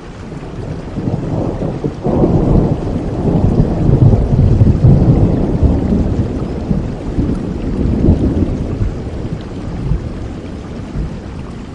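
Thunderstorm: a long low roll of thunder over steady rain, swelling sharply about two seconds in, peaking around four to five seconds and slowly fading.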